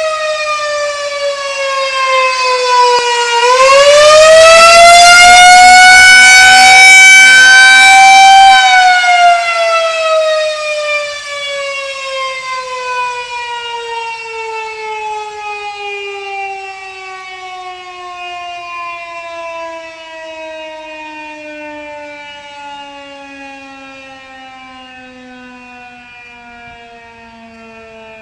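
Outdoor tornado warning siren sounding a warning. Its wail dips, climbs again to its loudest a few seconds in, then winds down slowly, the pitch sliding steadily lower as it fades.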